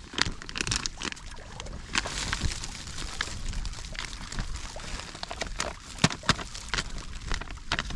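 A crinkly food pouch being handled and tipped up, its pasta pouring out into a metal cook pot as a patter of small clicks and rattles.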